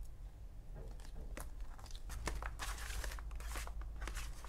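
Paper sticker sheets and memo pads rustling and crinkling as a hand leafs through a stack of them, a series of short rustles that grow denser from about two seconds in.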